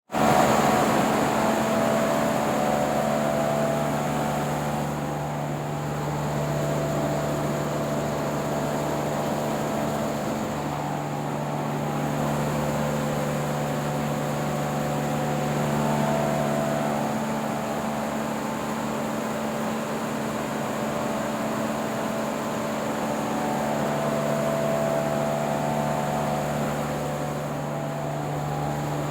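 Axial fan running steadily: a continuous rush of moving air with a steady low hum and a few fixed higher tones.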